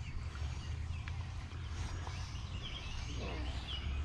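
Outdoor ambience of short, faint bird chirps over a steady low rumble, with scissors cutting through EPDM rubber roofing membrane close by.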